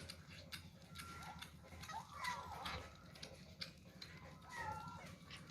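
Kittens mewing in short high calls while they eat, with scattered small clicks of eating.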